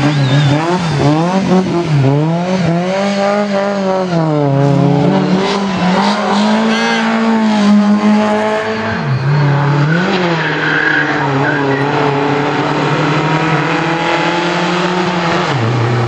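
Rally car engines at full throttle, rising and falling in pitch again and again as the cars rev through the gears and lift off for the bends, with one car's sound giving way to the next's. Near the end the pitch drops sharply as a car slows for a corner.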